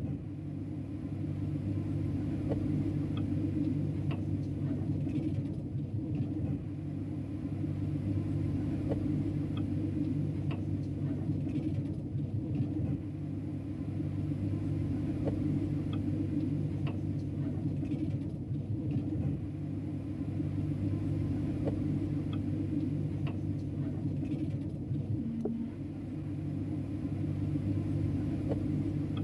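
Steady low machinery rumble with a constant hum, with faint ticks now and then.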